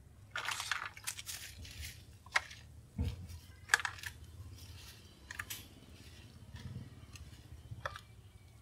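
Metal tongs clicking and scraping against a plate and a foam takeaway box as fried pieces are picked up, with a thin plastic bag rustling between the clicks. The clicks are sharp and irregular, a few of them louder than the rest.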